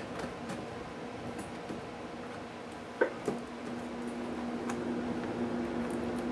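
Hard plastic of an HP DV9000 laptop being handled and pried at with a small screwdriver: scattered small clicks and taps, with a sharp knock about three seconds in and a second one just after. A steady low hum comes in after the knocks.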